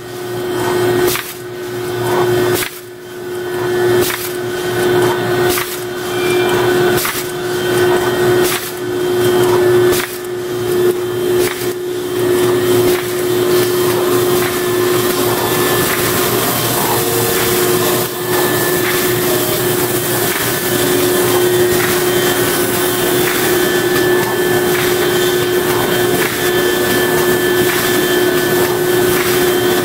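LY 1250Ed plastic bag-making machine with wicketer running: a steady mechanical hum with a constant tone. It beats regularly about every second and a half for the first twelve seconds, then runs evenly.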